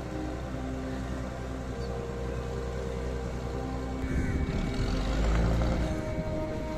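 A fishing boat's engine running with a low drone under soft ambient music, growing louder and noisier about four seconds in as the boat passes close, its wake churning.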